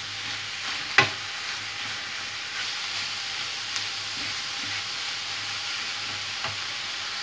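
Minced meat and onions sizzling in a hot stainless-steel frying pan while being stirred and browned with a wooden spoon. The spoon knocks sharply against the pan about a second in, with a few lighter taps later.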